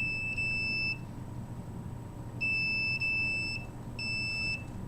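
Handheld microwave radiation detector's alarm beeping: high-pitched electronic beeps about half a second long, a pair at the start, another pair midway and a single beep near the end. It sounds because microwave signals are getting past the metal tray shield and the reading is over the alarm limit.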